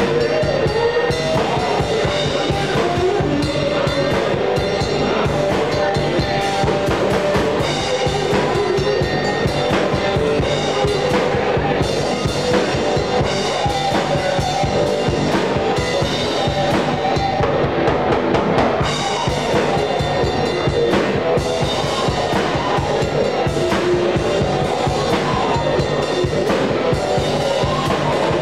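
Live rock band playing: a drum kit keeping a steady kick-and-snare beat under amplified electric guitars.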